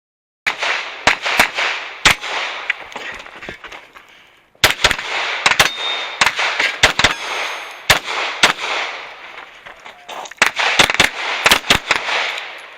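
Handgun shots fired in fast pairs and strings during an IPSC stage, each echoing across the range, with a short pause about four seconds in before the firing resumes.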